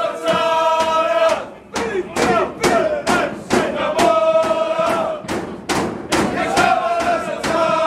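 Football crowd chanting loudly in unison, holding long sung notes, with sharp rhythmic beats about three a second in between.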